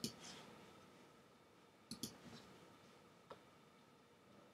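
A few faint computer clicks against near silence: one at the start, a quick pair about two seconds in, and a smaller tick a little later.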